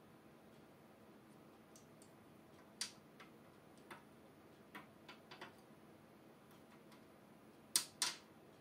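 Air curtain tube being pressed into the gravel of a glass aquarium by hand: a few scattered sharp clicks and taps, with two louder ones close together near the end.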